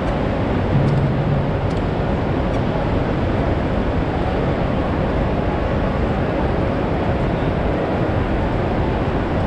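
Steady din beside a Mumbai local electric multiple-unit train standing at a platform, the train's running hum blending with platform crowd noise. A brief low drone comes in about a second in.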